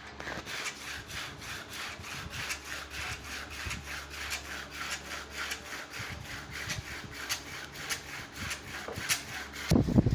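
Hand saw cutting through wood in steady back-and-forth strokes, about three a second. A louder, lower sound starts just before the end.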